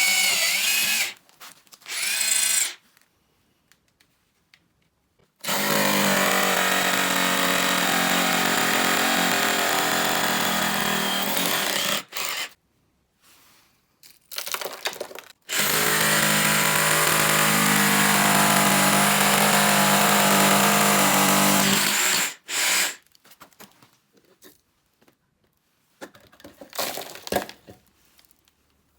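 Hitachi 24V battery drill running in repeated bursts: a few short squeezes of the trigger and two long steady runs of about six seconds each, stopping cleanly each time. Faint clicks are heard near the end.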